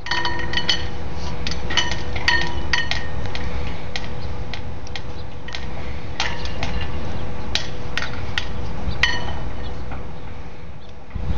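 Metal flagpole hardware clinking: about twenty irregular, sharp metallic clinks, each ringing briefly, as the halyard's snap hooks knock against the pole while the flag is handled at it.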